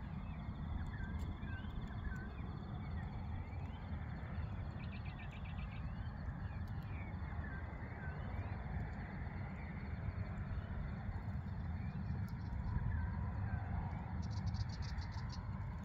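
Outdoor bush ambience: scattered bird chirps and short whistled glides, with two rapid trills, over a steady low rumble. Near the end the hum of a distant aircraft engine grows louder.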